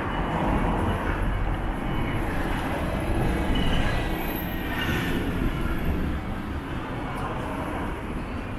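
A train passing: a steady rumble that eases off slightly over the last few seconds.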